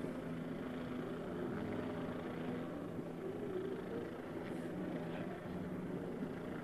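Steady low hum of an idling engine over outdoor street noise.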